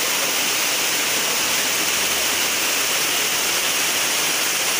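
Loud, steady rush of fast-flowing floodwater surging through the street, an even hiss with no let-up.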